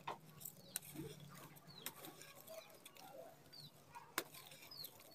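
Dry red dirt and sand-cement clumps crumbling and crunching in the hands, with a few sharp crackles, the loudest about four seconds in. Faint bird calls sound in the background.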